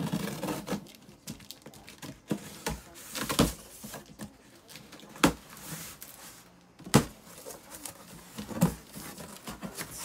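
A folding knife slicing the packing tape along a cardboard box's seam, with scraping and rustling of tape and cardboard. Several sharp knocks and taps, the loudest about five, seven and eight and a half seconds in, as the box is handled and its flaps are pulled open.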